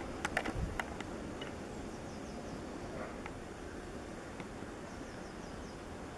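Outdoor background: a steady rush of wind, with a few low buffets on the microphone and a cluster of sharp clicks in the first second, and faint high bird chirps. No clear aircraft sound stands out.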